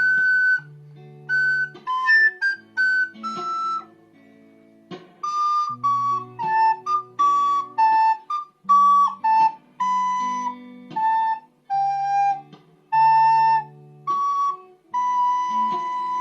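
Instrumental music: a high lead melody of short separate notes over low accompanying notes, pausing briefly about four seconds in.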